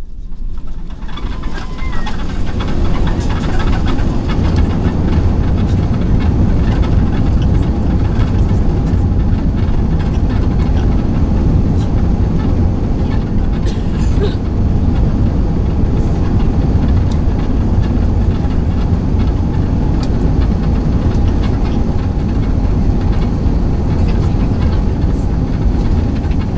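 Steady, loud low rumble inside the cabin of an Airbus A380 rolling out on the runway after touchdown: engine and wheel noise together. It builds over the first couple of seconds, then holds steady.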